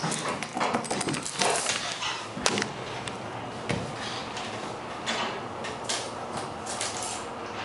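Schindler hydraulic elevator car running, with a steady hiss and many rattling clicks and knocks, busiest in the first few seconds and with one sharp knock about two and a half seconds in.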